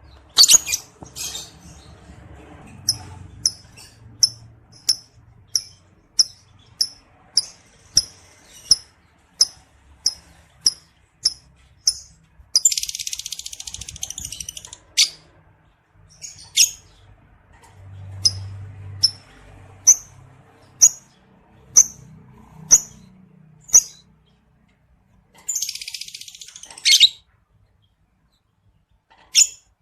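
Male lovebird in breeding condition calling: a steady run of short, sharp, high chirps, about two a second. The run is broken twice by a dense chatter lasting about two seconds, the 'ngekek' song of a male lovebird in breeding condition.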